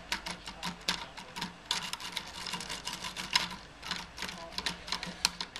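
Lock-picking rake scrubbed rapidly in and out of a pin tumbler lock under a tension wrench: fast, irregular metallic clicking and scraping as the rake rattles over the pins.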